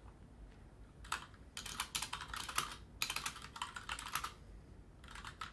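Typing on a computer keyboard: quick runs of key clicks in a few short bursts with brief pauses between them, after a quiet first second.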